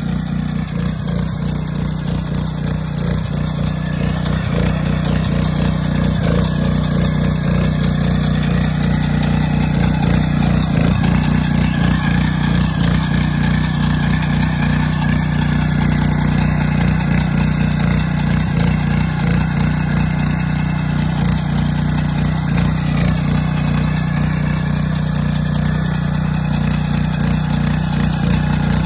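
The engine of a WY400B vertical-shaft mini power tiller running steadily under load, its tilling blades churning through soil.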